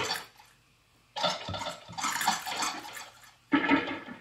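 Percussive electronic samples triggered by tilting a motion controller, played through a feedback delay: three noisy bursts with fading tails, one dying away at the start, a longer one lasting about two seconds from about a second in, and a short one near the end.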